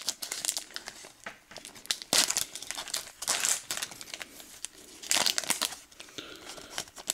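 Foil wrapper of a Pokémon card booster pack being torn open and crinkled by hand, in irregular crackling bursts, loudest at about two, three and five seconds in.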